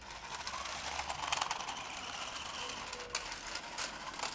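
Toy quad bike running across block paving: its small electric motor whirring and its plastic wheels rattling over the bricks, with a few sharp clicks.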